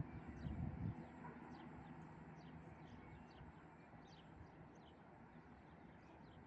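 Faint outdoor ambience: a small bird repeats short, high chirps that fall in pitch, about two a second. Under them, a low rumble dies away within the first second.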